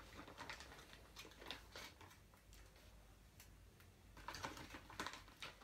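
Faint handling sounds of a clear plastic bag being rustled and small pieces picked from it: soft crinkles and light clicks, a little louder and busier between about four and five seconds in.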